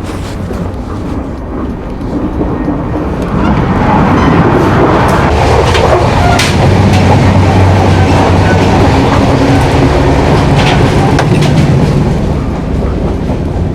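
Passenger train running on the rails: a rumble of wheels and coach with low steady tones that grows louder about four seconds in and eases near the end, with a few sharp clicks along the way.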